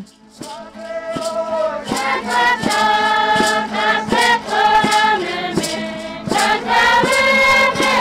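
A group of voices singing a chant in long held notes, over a steady beat of sharp percussion strokes about two to three a second.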